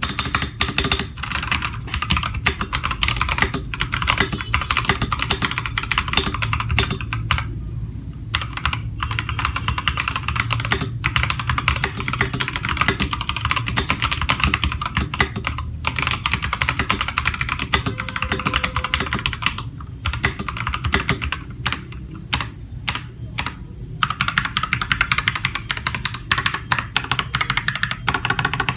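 AKKO 3098B mechanical keyboard with red linear switches being typed on rapidly and continuously, a dense clatter of key clicks with a few short pauses.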